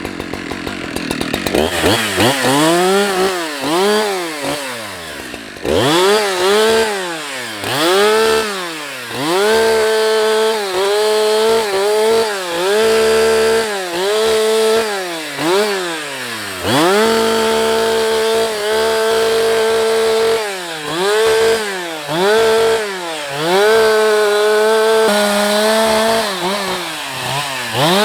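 Husqvarna 365 two-stroke chainsaw revved up and down again and again, with stretches of a few seconds held at full throttle as it cuts through wood, limbing and bucking a felled tree.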